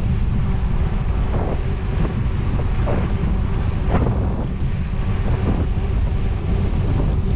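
Wind rumbling steadily on the microphone of a camera riding along on a moving bicycle, with a few brief rattles or knocks scattered through.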